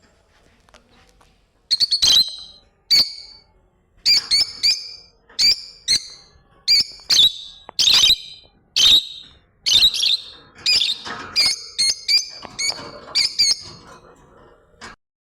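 A bird calling over and over, loud, short sharp calls coming about one or two a second after a quiet first two seconds.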